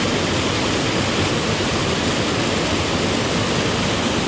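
Creek water rushing and splashing over boulders in a small cascade: a loud, steady rush of white water.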